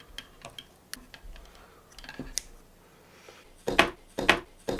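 Light clicks from handling the headphone parts, then three louder sharp snips near the end as the wire to the headphone driver is cut.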